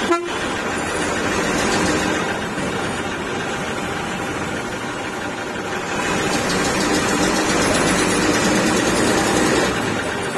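Bus engine running as the bus moves slowly through heavy city traffic, heard from inside the cab, with a short sharp knock right at the start. The engine sound grows louder over the last few seconds.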